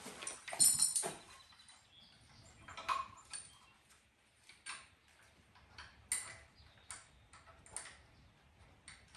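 Steel lifting chain clinking against the engine's metal as it is wrapped around the engine and hooked up: a short jangle of links about half a second in, then scattered single clinks every second or so.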